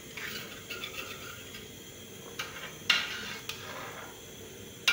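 Metal spoon stirring in a pot of pepper soup with yam and fish, clinking and scraping against the pot several times, with the sharpest knock about three seconds in.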